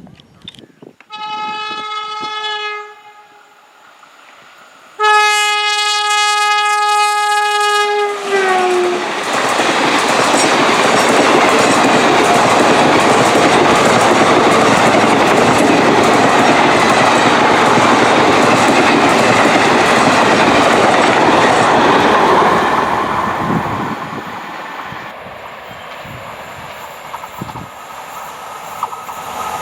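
Electric locomotive air horn sounds two blasts, the second dropping in pitch at its end as the locomotive passes. The express then runs by at speed with a long, steady rush of coaches on the rails, fading near the end.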